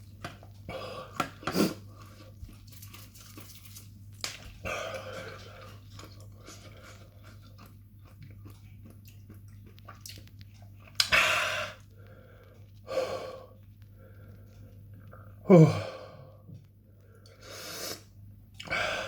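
A man chewing crunchy food with his mouth close to the microphone, broken by short noisy breaths. About fifteen seconds in comes a loud, short vocal noise that falls steeply in pitch.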